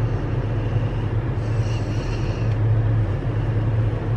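Steady low hum of a car idling, heard from inside its cabin while it sits parked.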